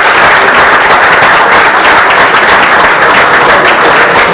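An audience applauding, loud and steady, as a talk ends.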